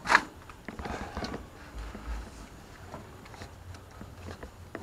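A sharp knock right at the start, then faint scattered clicks and rustles of trash being handled in and around a dumpster.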